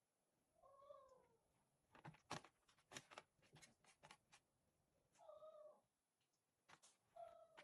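A cat meowing softly, three short calls, with light clicks and taps between them.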